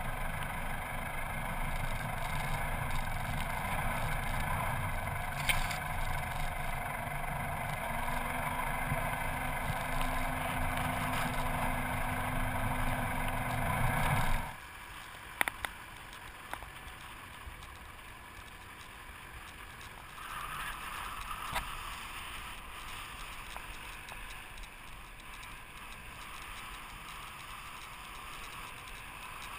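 Four-wheel drive driving along a sandy track: steady engine and driving noise. About halfway through the noise drops abruptly to a much quieter level, with a few sharp knocks just after.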